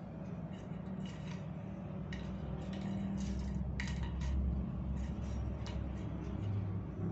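A kitten batting a plastic drinking straw across a ceramic tile floor: scattered light clicks and taps of the straw and paws on the tiles, over a low steady hum.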